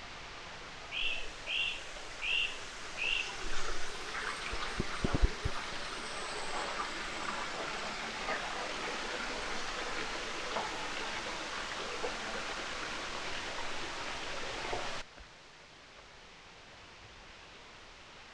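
Steady rush of running water. Near the start a bird chirps four times in a row, and a few knocks sound a few seconds in. About fifteen seconds in the water sound cuts off abruptly to a quieter outdoor hush.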